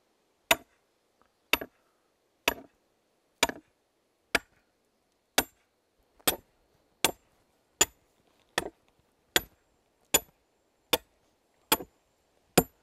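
Sledgehammer blows, about one a second and some fifteen in all, each a sharp crack with a brief high ring, as a steel stake is driven to pin a timber sill.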